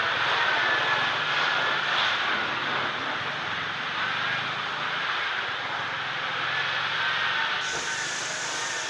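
Pressure washer spraying water onto a car, a steady hiss of spray with a faint whine running through it.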